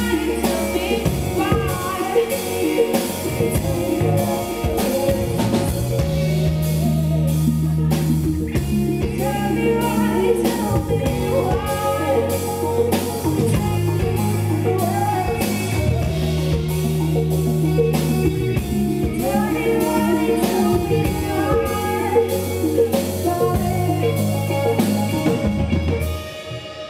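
Live pop-rock band playing: a female lead vocal over electric guitars, bass guitar and drum kit, with a steady repeating bass line. The band stops about 26 seconds in, leaving the room much quieter.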